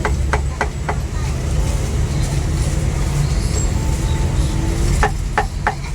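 A cleaver chopping roast meat on a wooden block: two quick runs of about four sharp chops each, one at the start and one about five seconds in. A steady low rumble runs underneath.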